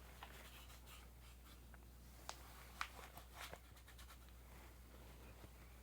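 Faint rubbing of an alcohol wipe over a Glock pistol's polymer frame, cleaning off oil before stick-on grips are applied, with a few small clicks and taps near the middle.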